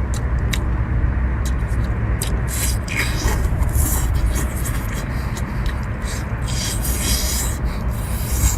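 Close-up eating sounds: a run of short wet smacks and crunchy clicks from someone chewing seafood, over a steady low rumble.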